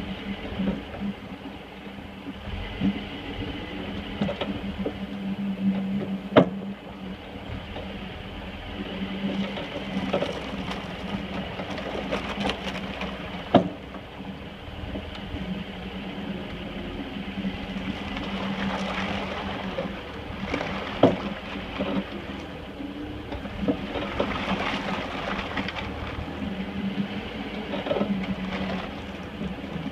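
Toyota 22R four-cylinder engine of a lifted 1985 pickup running steadily as the truck drives, with rattling throughout and three sharp knocks spaced about seven seconds apart.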